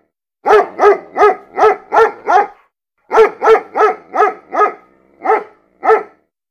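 A dog barking: two quick runs of five or six short barks, then two single barks a little apart, with dead silence between them.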